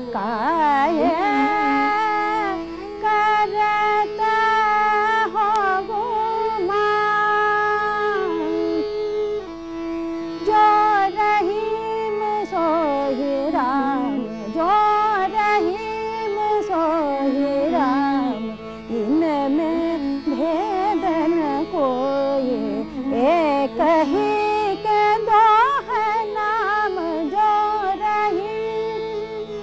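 Female Hindustani classical vocalist singing in Raga Shankara over a tanpura drone, alternating long held notes with fast ornamented runs.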